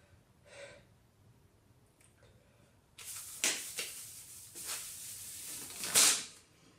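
Nylon stocking being dragged up and off a head: a rasping, rustling friction noise that starts about three seconds in and lasts about three seconds, loudest near the end as the stocking pulls free.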